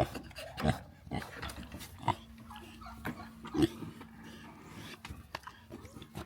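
Farm animals calling in short, scattered sounds, with a steady low hum that starts about two seconds in.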